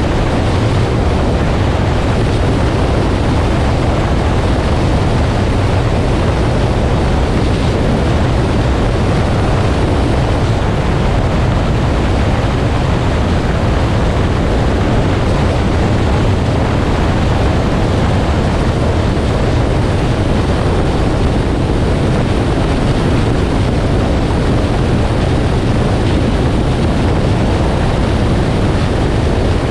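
Steady road and wind noise from a 2018 Nissan Armada SUV driving, an even rumble and rush that does not change.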